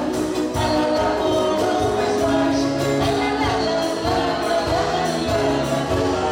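Live folk band playing: a woman singing over accordion, acoustic guitar and drums, with a steady beat.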